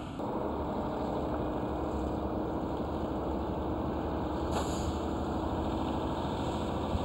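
Heavy construction machinery engine running steadily, a low rumble with a constant hum, and a short hiss about halfway through.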